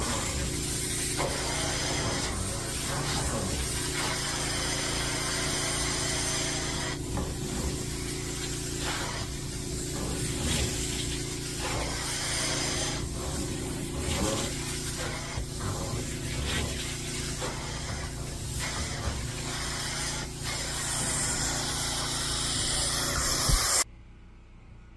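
Upholstery cleaning machine running with a steady motor hum and a loud hiss of spray and suction, with irregular strokes as the tool is worked over the fabric. It cuts off abruptly near the end.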